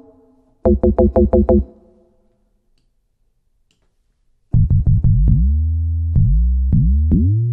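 Logic Pro X EFM1 FM synthesizer notes. About half a second in comes a quick run of about eight short plucked notes, then a pause. From about four and a half seconds, deep bass notes play, each with a pitch sweep at the attack, as the modulator pitch is changed.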